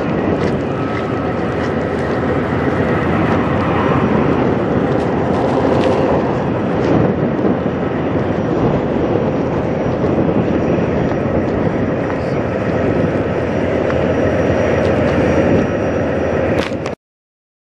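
Western Star semi truck's diesel engine idling steadily, heard close, until it cuts off suddenly near the end.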